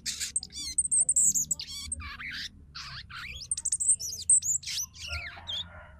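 A female sogon calling: a busy run of short raspy chirps mixed with thin, high whistled notes, some of them trilled. This is the chattering call a female uses to call a male.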